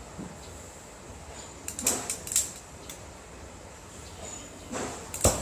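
Flint striker being squeezed to light an acetylene torch: a few quick sharp snaps about two seconds in, then a single louder snap near the end.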